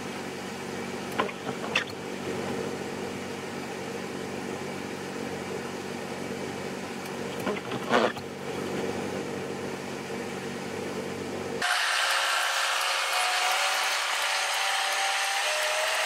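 A steady low hum with a few brief knocks, then, about three-quarters of the way in, a sudden change to a louder Cat 272D skid-steer loader running, its diesel engine and hydraulics giving a steady whine over a dense mechanical noise.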